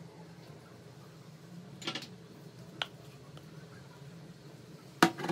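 Faint clicks of a silicone spatula against a glass mixing bowl as cake batter is scraped out into a bundt pan, with a sharp knock near the end.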